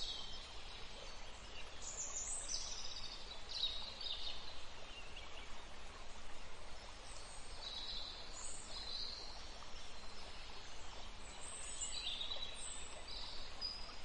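Woodland ambience: birds chirping in short, high-pitched calls scattered through, over a steady low background noise.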